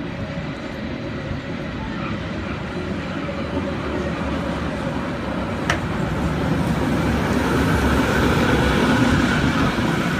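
Powell–Hyde San Francisco cable car climbing the hill and passing close by: a steady rumbling clatter of wheels on rails that grows louder as it comes up, loudest as it goes past near the end. One sharp knock about halfway through.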